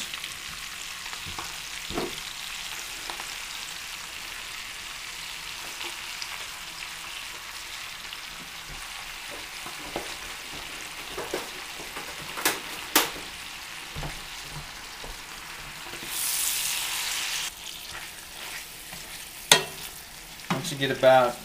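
Fresh spinach sizzling as it wilts in hot butter in a stainless steel pan, with a wooden spoon stirring and now and then knocking against the pan. A louder stretch of sizzling lasts about a second and a half, two-thirds of the way through.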